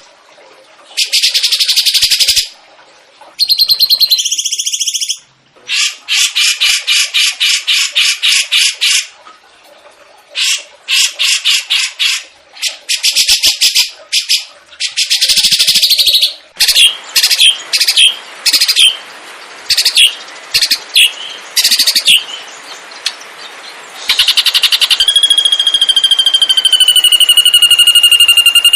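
Recorded songbird song: loud bursts of rapid trilled notes, some ending in quick separate chirps, like the fast 'tembak' trills prized in masteran birds. From about 25 s a long steady whistled tone with overtones takes over.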